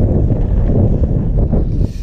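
Wind buffeting the microphone of a camera on a mountain bike riding down a loose gravel trail, with a few knocks and rattles from the bike late on.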